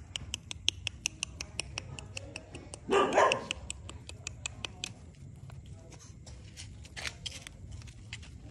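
A dog gives one loud bark about three seconds in. Behind it runs a fast, regular ticking, about six ticks a second, that fades out after the first few seconds.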